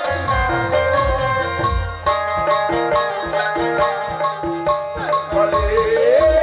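Live Indian folk band music: a keyboard and harmonium melody over tabla drumming with a steady beat. A voice comes in briefly near the end.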